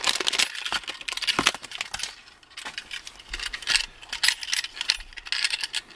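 A clear plastic bag crinkling and a handheld digital fish scale being handled, its small metal hook and clip clinking in irregular clicks. The handling sounds thin out briefly midway.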